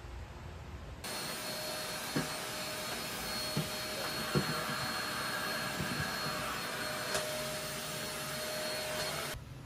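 Corded stick vacuum cleaner running steadily, a hiss with a thin steady whine, with a few light knocks in the first half. It starts suddenly about a second in and cuts off just before the end.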